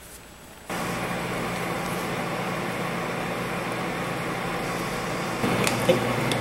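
Steady mechanical hum, like a running fan or appliance, that starts abruptly under a second in, with a few light clicks near the end.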